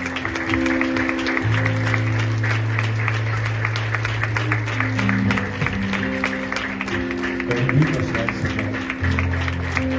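Congregation clapping steadily over music of long held chords that change every few seconds.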